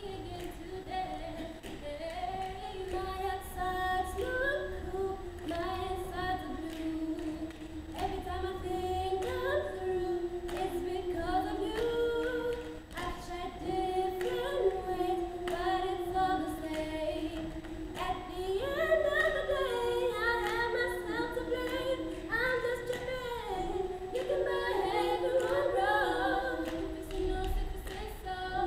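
A school glee club choir of teenagers singing a cappella, with no instruments.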